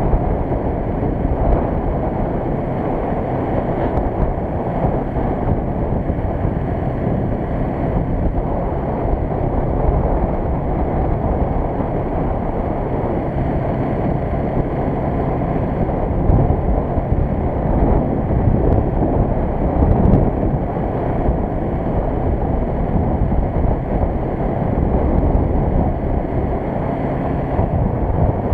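Wind buffeting the microphone over the steady running of a Suzuki GS500's air-cooled parallel-twin engine, as heard on the move while riding.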